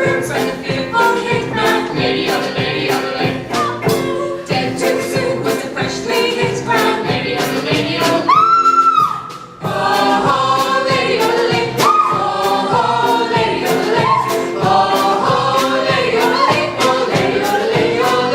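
Group of voices singing a yodelling show tune over a backing track with a steady beat. About halfway a single high note is held for about a second, then the music briefly dips before the singing resumes.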